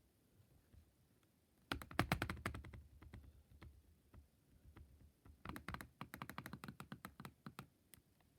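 Rapid clicking and tapping on a computer keyboard, in two quick runs of sharp keystrokes with a pause between.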